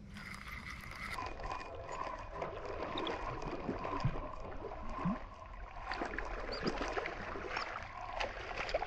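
A hooked crappie splashing at the water surface as it is played on a bent jigging pole, a run of small irregular splashes and gurgles.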